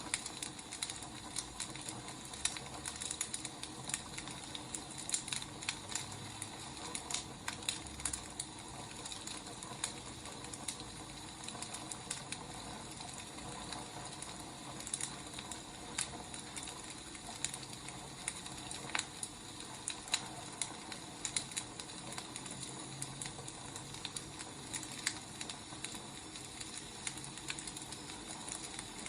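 Wood fire crackling: irregular small pops and snaps over a steady hiss.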